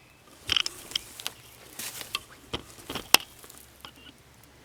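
A few scattered light knocks, taps and scrapes, with one sharp click about three seconds in.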